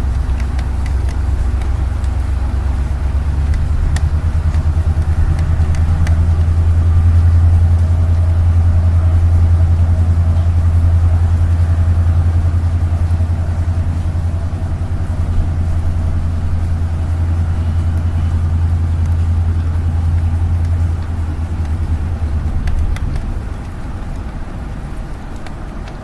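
Low rumble of city road traffic heard from an apartment window, a heavy vehicle's engine swelling in the middle and easing off near the end, over light rain with faint ticks of drops.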